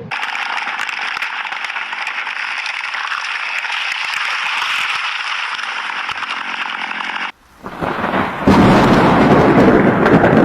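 Thunderstorm: a steady hiss of rain. About seven seconds in it cuts off abruptly, and a louder, deeper rush of rain and thunder rumble takes over.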